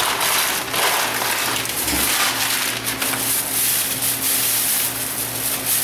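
Plastic bag crinkling and rustling as it is handled, with many quick crackles.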